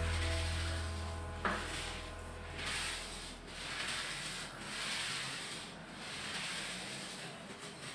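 Paint roller on an extension pole being rolled up and down a wall to apply paint, a swishing rub that swells with each stroke, roughly once a second.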